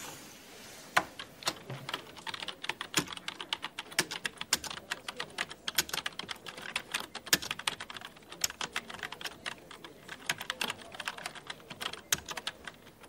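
Typing on a computer keyboard: a long run of quick, uneven key clicks, several a second.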